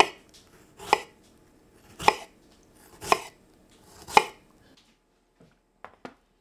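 Kitchen knife slicing a strawberry on a wooden cutting board: five sharp knocks of the blade against the board, about one a second. A few faint light clicks near the end.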